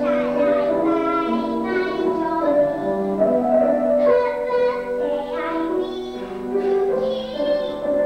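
A young girl singing a song over instrumental accompaniment, her melody moving through held notes without a break.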